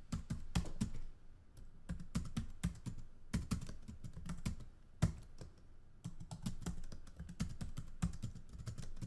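Someone typing on a computer keyboard: a quick, uneven run of key clicks with brief pauses between bursts.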